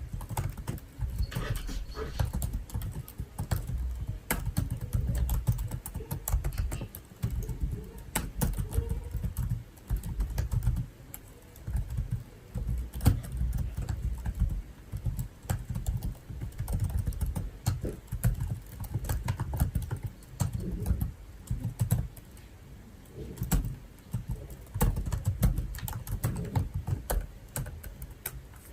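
Typing on a computer keyboard: rapid runs of key clicks with soft low thuds, broken by short pauses.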